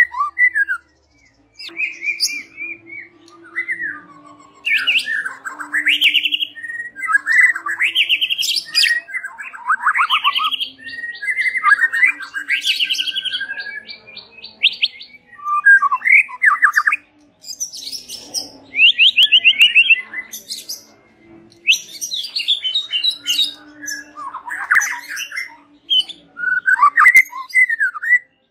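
White-rumped shama singing a loud, varied song of gliding whistles and chattering notes, with a fast rattling trill about halfway through and short gaps between phrases.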